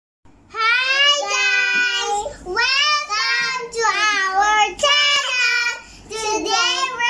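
Young girls singing a short tune in high voices, in several phrases with held notes and brief breaks between them.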